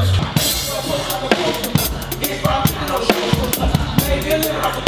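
Live drum kit playing a run of kick, snare and tom hits, with quick cymbal hits near the end, as part of a band's music.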